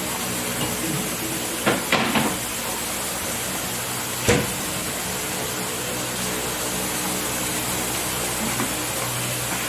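Steady hiss of food frying in a pot on the stove, with a couple of light knocks about two and four seconds in.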